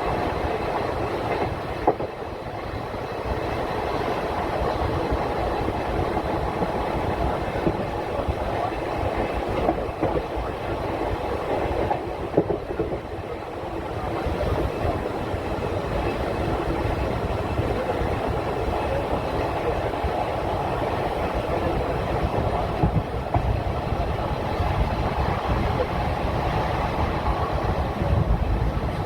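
Passenger train running along the track, a steady rumble of wheels on rails with a few sharp clacks as the wheels pass over rail joints.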